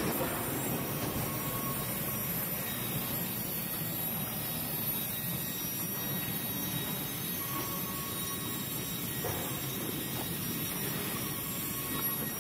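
Steady rumble of heavy machinery running without a break, with a few faint steady whining tones over it.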